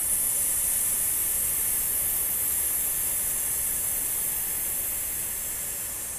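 A woman's long, steady 'sssss' hiss on one slow exhalation: the lung sound of the Taoist Six Healing Sounds. It fades gently near the end.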